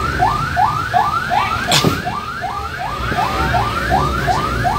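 Emergency siren sounding in quick rising sweeps, about two and a half a second, each dropping back sharply before the next, over a low vehicle rumble, with one sharp knock about two seconds in.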